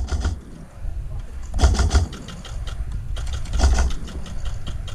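Airsoft electric gun firing on full auto: two rapid bursts of clattering shots, about one and a half seconds in and again about three and a half seconds in, with scattered shots between.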